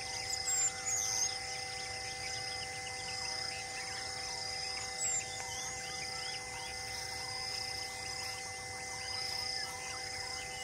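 Forest ambience: insects shrilling steadily with a fast pulsing buzz, over a steady low hum. Short high bird chirps come about half a second to a second in and again around five seconds in.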